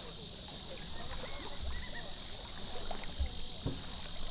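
Outdoor ambience dominated by a steady, high-pitched insect chorus, with a few faint bird chirps over it.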